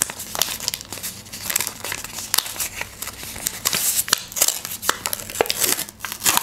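Paper rustling and crinkling in quick, irregular bursts as a handmade paper surprise packet is opened by hand and its folded contents pulled out.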